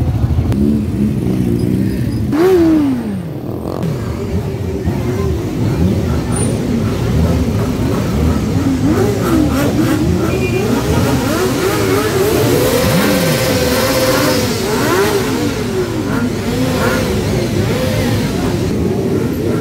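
Many motorcycle engines running together, their throttles revved up and down again and again in overlapping rising and falling notes as the bikes pull away.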